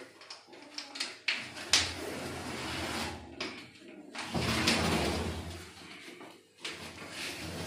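Galvanised metal bin being pushed and dragged on a concrete floor: a few sharp knocks in the first two seconds, then two longer scraping sounds of a second or two each.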